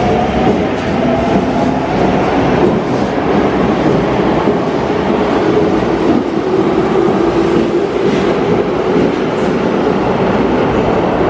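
Electric train running on the track, its traction motors whining in tones that slowly drift down in pitch.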